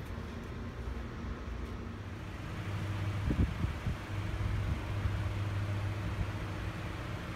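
Steady low mechanical hum of running air-conditioning units, getting louder about two and a half seconds in, with a few brief low thumps a little after three seconds.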